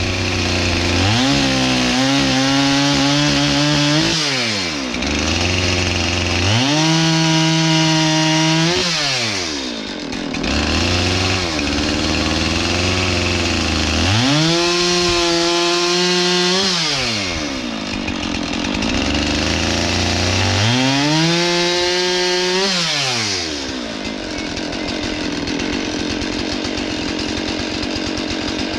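Two-stroke chainsaw revving up and cutting four times, about three seconds each, dropping back to idle between cuts and idling near the end: cutting points on wooden fence posts.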